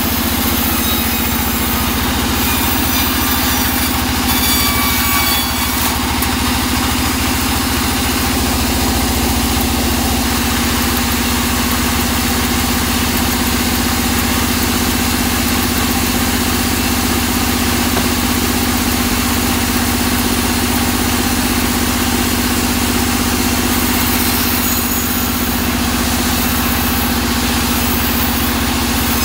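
Large vertical band saw running steadily while cutting blocks of teak, a continuous machine hum with the steady noise of the blade in the wood.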